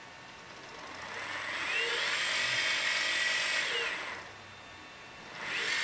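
Brushless drive motors of a small robot whining under an ODrive controller during its startup calibration, with the robot standing still. A high-pitched whine with a thin, steady very high tone swells up, holds for about two seconds and falls away, then swells again briefly near the end.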